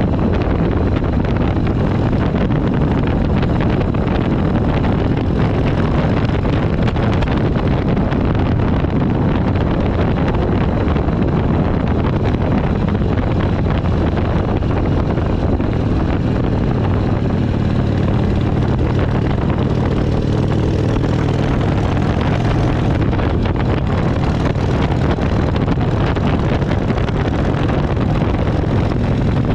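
Harley-Davidson V-twin motorcycle engine running steadily while cruising, mixed with wind buffeting the microphone.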